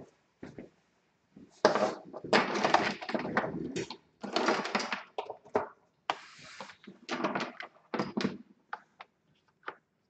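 A laptop power adapter brick and its cord being handled and laid across a tabletop: a run of scraping, rustling clatter and knocks, loudest from about two to five seconds in, then shorter scrapes and a few clicks.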